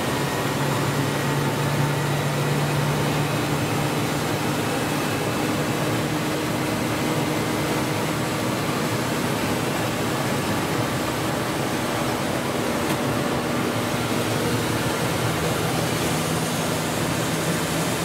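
Military helicopter's engines running, heard from inside the cabin as a steady drone with a low hum.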